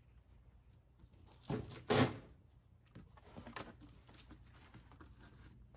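A large cardboard sign being handled and brought into place: two louder swishes about one and a half to two seconds in, then smaller scattered rustles and taps.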